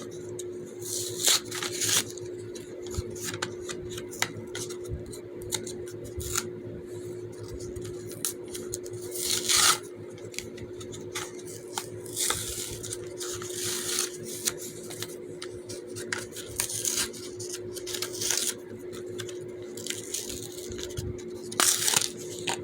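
Simple Dimple keychain fidget toy being played with: an irregular run of small plastic clicks and pops as its buttons are pushed, over a steady low hum.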